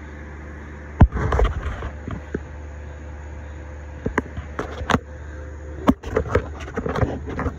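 CNC mill spindle driven by a 3.7 kW motor on a VFD, turning very slowly under closed-loop control with a steady hum and a faint steady whine. A sharp click comes about a second in, and a few lighter clicks follow later.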